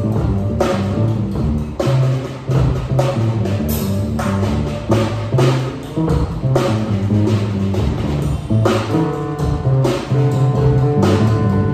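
Free-improvised music from a Tama drum kit and a cello: low notes held and shifting under frequent drum and cymbal strokes.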